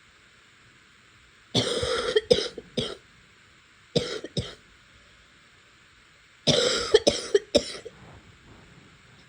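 A person coughing in three bouts of two to four coughs each, starting about one and a half, four and six and a half seconds in. The uploader ties the coughing to a sinus problem.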